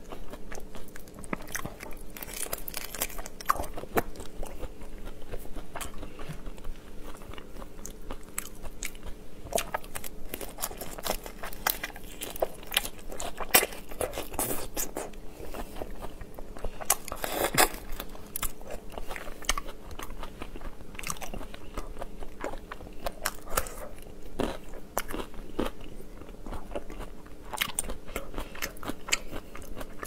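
Close-up eating sounds of raw marinated prawns: shells cracking and tearing as they are peeled by hand, with wet chewing and crunching in an irregular stream of sharp clicks, over a faint steady hum.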